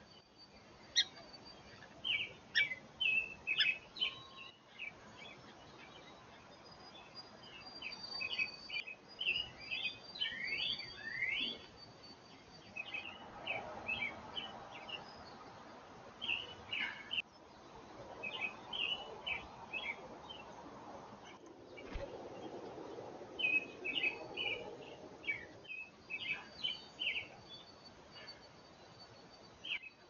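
Songbirds chirping and singing in quick clusters of short notes, with a thin, high whistle held for a few seconds at times. The birdsong breaks off briefly several times.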